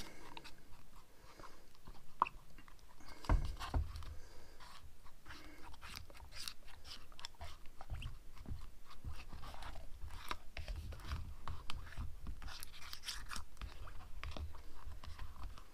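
Thick pink silicone mould rubber being stirred with a stick in a plastic tub to mix in its hardener: irregular sticky clicks and scrapes, with occasional low thumps.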